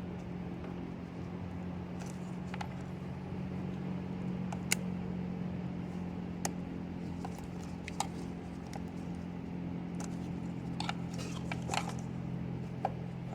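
Jeep Compass four-cylinder engine idling steadily, run to check whether the cylinder 3 misfire follows a swapped ignition coil, with a few light clicks and taps from work around the engine bay.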